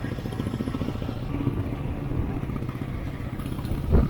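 Royal Enfield Himalayan's 411 cc single-cylinder engine running steadily on the move, its thumping pulse mixed with wind noise on the camera microphone. A brief loud thump near the end.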